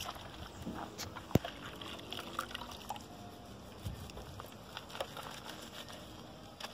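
Faint sloshing and dripping of soapy water as a chenille microfiber wash mitt is squeezed and worked by hand in a bucket, with scattered small clicks and one sharper tap about a second and a half in.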